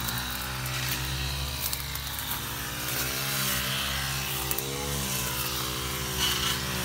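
A small engine running steadily at low speed, its pitch rising and falling slightly.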